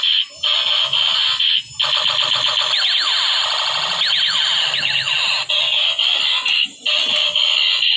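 Battery-operated transforming robot toy playing electronic sound effects through its small built-in speaker: a harsh, buzzing, alarm-like tone with quickly sweeping, siren-like warbles in the middle. It breaks off briefly three times.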